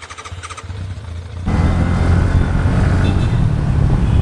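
A small two-wheeler's engine running, with a steady low rumble that gets clearly louder about a second and a half in as the bike gets going.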